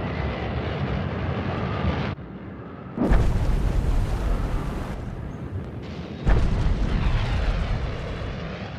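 Sound-designed explosion effects: a heavy rumbling blast that cuts off about two seconds in, then two sudden deep booms about three seconds apart, each trailing off into a long rumble.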